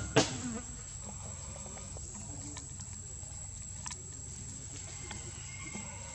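Insects droning steadily in one high-pitched note, with two sharp knocks right at the start and a few faint ticks later.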